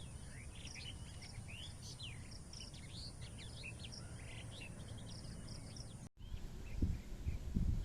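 A chorus of small birds chirping rapidly and overlapping, over a steady high-pitched insect drone. Both cut off abruptly about six seconds in, and a few low rumbling thumps follow near the end.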